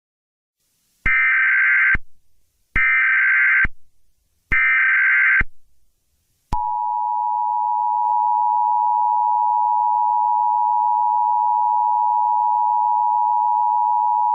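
Emergency Alert System tones: three electronic bursts of the SAME digital header, each just under a second long and about a second apart, then, about six and a half seconds in, the steady two-tone EAS attention signal, which is still sounding at the end.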